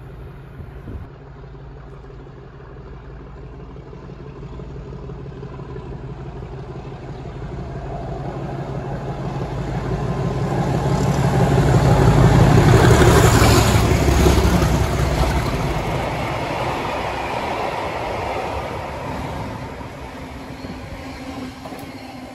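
Two Class 37 diesel locomotives, each with an English Electric V12 engine, approaching and passing hauling a train of flat wagons. The engine note builds steadily to its loudest about thirteen seconds in, then gives way to the running noise of the wagons, which fades as they go by.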